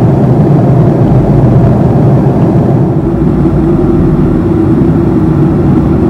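Jet airliner cabin noise heard from a window seat: the steady rush of engines and airflow in cruise, with a constant low hum.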